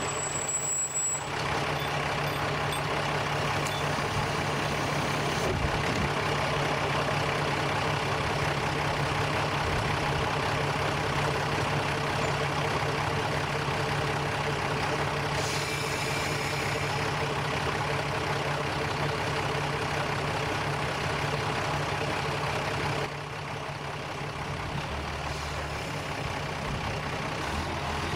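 Diesel railcar's engine idling at a station, a steady hum that drops slightly in level near the end.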